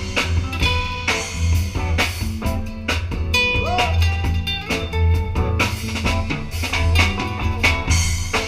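Live band playing: electric guitar over bass and drum kit with a steady beat, no vocals yet.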